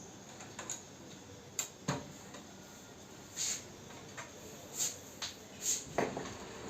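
Computer hardware being handled: scattered sharp clicks and knocks, with a few short rustling swishes in between.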